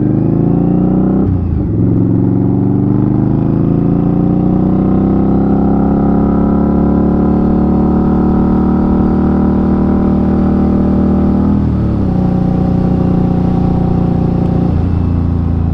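A 2020 Indian Scout Bobber's V-twin engine under way. It accelerates with a rising note, shifts gear about a second and a half in, then pulls up to a steady cruise. A second shift comes near twelve seconds, and the note drops near the end.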